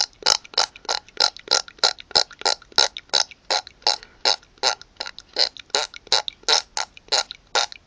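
A person making a rapid, evenly spaced train of short mouth noises, about three or four a second.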